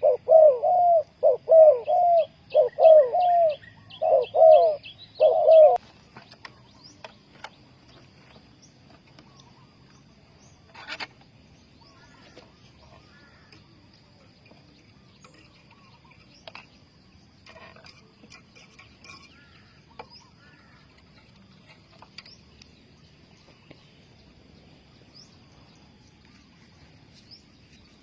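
Spotted dove cooing loudly in a quick series of repeated rising-and-falling coo notes, which stops about six seconds in. After it, faint scattered chirps of small birds continue over a steady, faint high-pitched tone.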